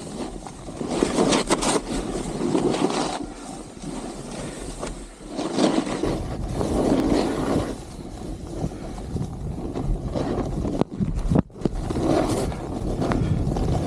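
Snowboard edge scraping and sliding on packed snow, swelling and fading with each turn, mixed with wind rush on the microphone. The sound cuts out briefly about eleven seconds in.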